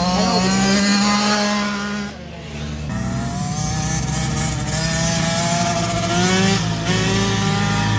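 Small children's motocross bike engines buzzing and revving up and down as they ride the dirt track, more than one bike at a time. The sound jumps about three seconds in, at a cut between shots.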